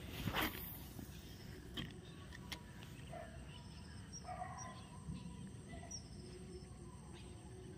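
Faint outdoor ambience: scattered short bird calls over a steady low background hiss, with one short knock about half a second in.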